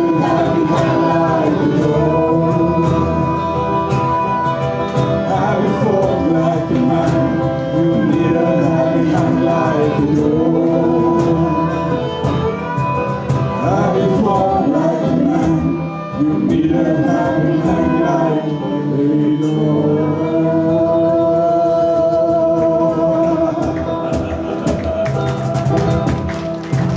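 Pirate folk band playing live: several voices singing together over a strummed acoustic guitar, ending on a long held note near the end.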